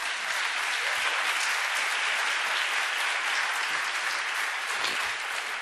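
Audience applauding: dense, even clapping from a large crowd that holds steady and eases off slightly near the end.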